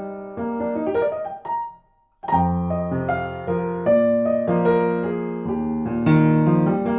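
Background piano music, chords struck one after another, with a brief pause about two seconds in.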